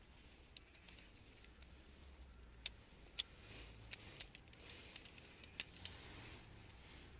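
Light metallic clicks and clinks, about eight of them, coming in irregular succession between roughly two and a half and six seconds in: small metal objects being handled.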